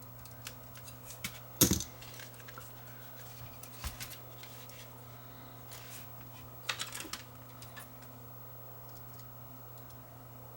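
Small plastic clicks and taps of camcorder parts being handled and fitted, with one sharp snap about a second and a half in as a clip pushes into place, and a short cluster of clicks near the middle.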